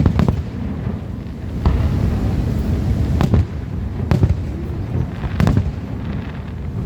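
Aerial fireworks bursting: several sharp bangs, about one every second or two, over a steady low rumble.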